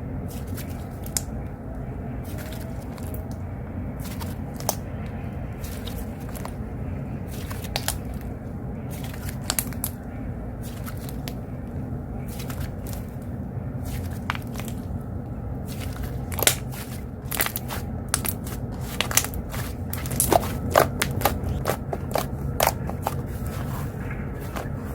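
Slime being pressed and squished by hand, giving crackling pops and clicks that come thicker and louder in the second half. A steady low rumble of outdoor noise through an open window runs beneath.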